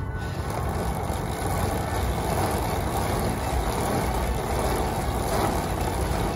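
Bicycle chain being run backwards through a rag as the pedal crank is turned by hand, wiping off excess lubricant: a steady rustling noise.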